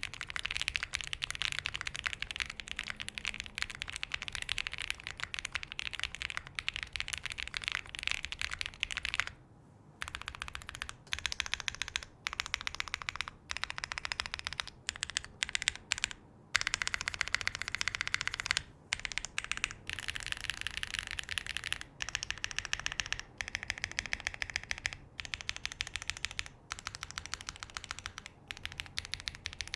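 Continuous typing on a Space65 R3 custom mechanical keyboard with Keyfirst Bling switches on a POM plate, with plate and case foam fitted. It makes a dense stream of quick keystroke clacks that stops for short pauses about a third of the way in and a few more times later.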